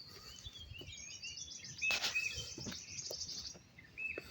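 Small birds chirping and twittering outdoors, with a fast run of high notes through the middle and a short steady whistled note twice. A single faint knock about two seconds in.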